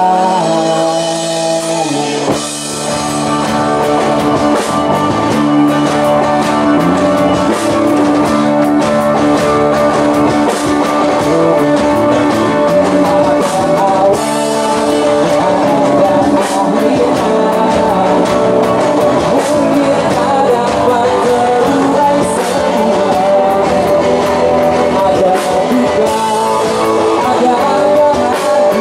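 Live rock band playing a song through a PA: electric guitars, bass guitar, keyboard and drum kit, with singing. After a short dip about two seconds in, the drum kit kicks in and the full band plays on steadily.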